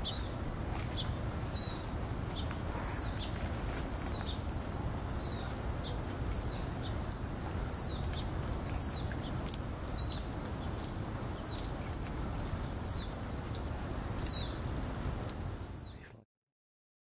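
Young North American river otter chirping over and over, about every half second, each chirp a quick high note that glides down, over a steady low background rumble. The sound cuts off suddenly near the end.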